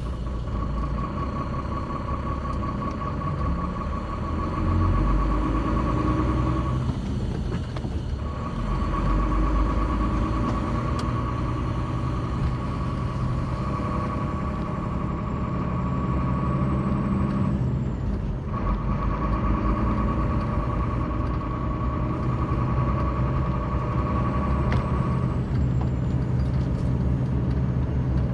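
Motor vehicle running, a low engine drone under a steady high whine. The whine drops out briefly about seven seconds in and again around eighteen seconds, and stops a few seconds before the end.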